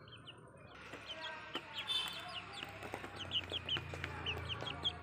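Young Kadaknath chicken peeping: a run of short, high cheeps, several a second.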